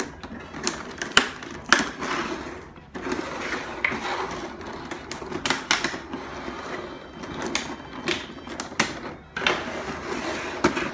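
Toy box packaging being handled: cardboard and styrofoam rustling and scraping, with many irregular clicks and knocks as the figure's packaging is opened.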